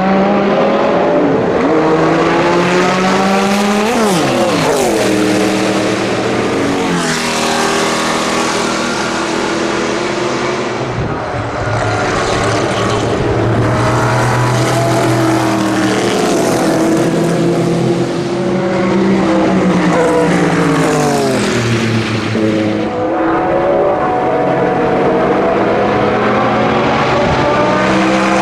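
Group C prototype race cars at racing speed, led by the Mercedes-Benz Sauber C11's twin-turbo V8. The engines repeatedly climb in pitch through the gears and drop back at each shift or lift. Several times the pitch falls away as a car passes by.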